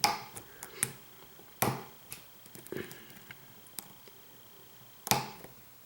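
An American Lock 5200 padlock being handled, giving a few scattered sharp clicks and knocks with quiet between them: one at the start, one about a second and a half in, and another near the end.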